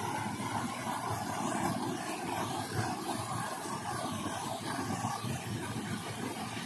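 Steady rush of a shallow stream flowing over rocks, with a small cascade running into it.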